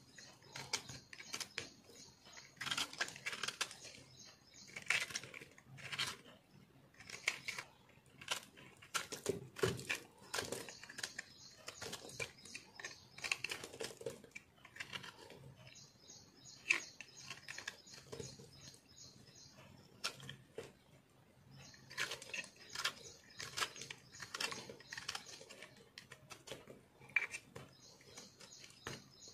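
Small knife blade carving and scraping a dry, crumbly block of remolded soap: irregular crisp crunches and scrapes, some sharper and louder than others.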